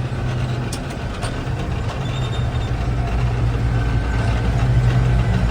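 Gleaner M3 combine running steadily, a loud low engine and machinery drone with a thin whine coming in about four seconds in.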